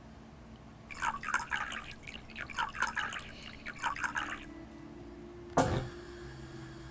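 Liquid dripping and splashing into a small container in a quick patter of small drops for a few seconds, followed by a single sharp knock.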